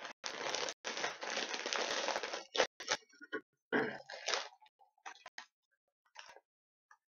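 Crinkly foil potato chip bag being pulled open and handled: a dense crackling rustle for about two seconds, then scattered crinkles and crackles that die away.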